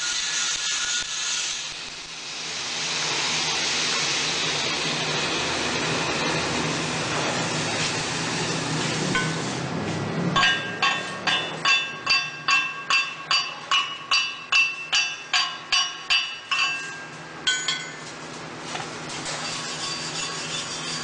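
Shielded metal arc (stick) welding arc crackling and hissing steadily. About ten seconds in it gives way to a rapid series of about seventeen ringing metal-on-metal blows, roughly two and a half a second: a chipping hammer knocking the slag off the fresh weld bead.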